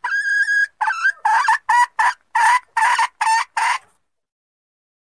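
Junglefowl hen calling: a long drawn-out note ends, then a quick run of about eight short clucks, stopping about 4 seconds in. This is the hen's lure call, used to draw wild junglefowl cocks out of cover.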